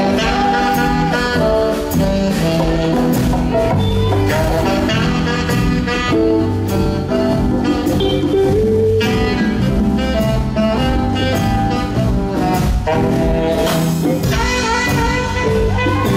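Live band music from electric guitars, bass and drums with a steady beat, loud and continuous.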